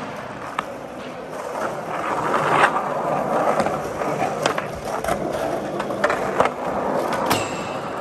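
Skateboard wheels rolling over smooth concrete with a steady rumble that grows louder about two seconds in, broken by several sharp clacks from the board.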